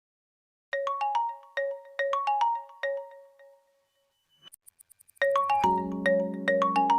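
Vivo V20 SE phone ringtone playing: a short, bell-like mallet melody of quick repeated notes starts about a second in and dies away. About five seconds in, a fuller tune with a steady bass line and chords begins.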